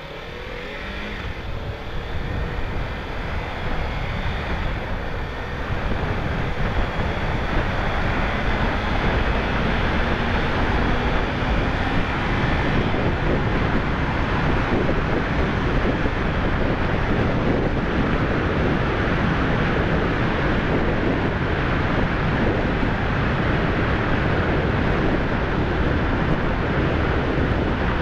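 Kawasaki Ninja 300 parallel-twin motorcycle accelerating, its engine pitch rising and the sound growing louder over the first few seconds. It then settles into a steady rush of wind on the microphone at cruising speed.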